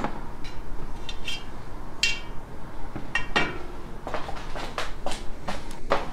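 Scattered metallic clinks and taps of bicycle tools and metal parts being handled on a workbench, a few with a short ring, about a dozen irregular hits.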